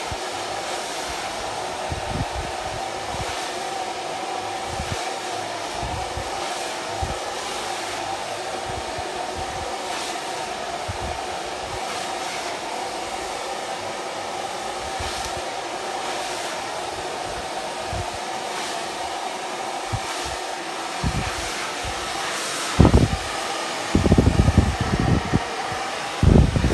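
Handheld hair dryer running steadily, a constant whooshing hiss with a steady motor hum. Near the end, loud low buffeting thumps break in over it.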